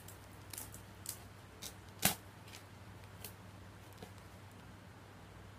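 Scattered clicks and snaps from a tightly packed bale of second-hand clothes being cut open, with one sharp snap about two seconds in, over a low steady hum.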